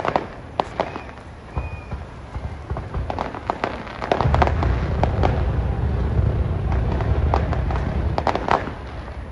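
Aerial fireworks display: scattered sharp bangs in the first few seconds, then from about four seconds in a dense barrage of low rumbling and crackling that ends in a few last bangs near the end.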